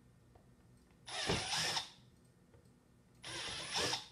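Cordless drill with a 1/4-inch bit boring out two pilot holes in the plastic wall of an organizer box: two short bursts of drilling, about a second in and again near the end.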